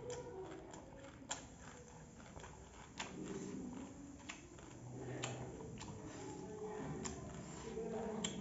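A person eating rice and chicken curry by hand from a steel plate: soft chewing and mouth sounds, broken by five sharp clicks spaced about every one and a half to two seconds.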